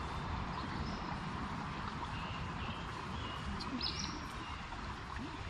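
Shallow forest creek water running steadily, with a few short bird chirps about three to four seconds in.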